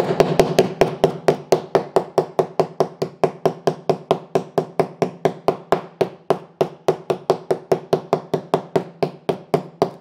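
Steel wire brush beaten bristles-first against foil-faced KILMAT butyl sound-deadening mat on a van floor: a rapid, even run of strikes, about five a second. The bristles are pricking through the shiny foil top layer so a spray-on sound deadener can bond.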